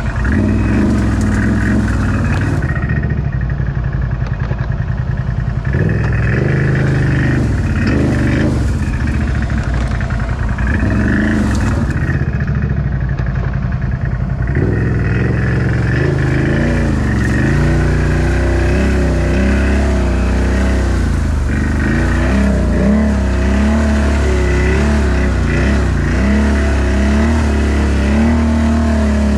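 Off-road vehicle engine running loud and close, fairly steady at first, then from about halfway revving up and down again and again as the machine works along a muddy trail.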